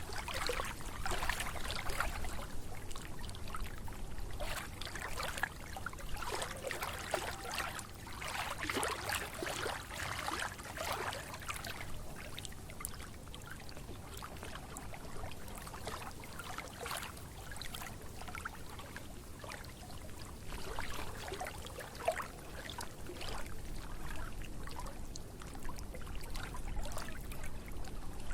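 Water trickling and splashing with an uneven patter of small splashes.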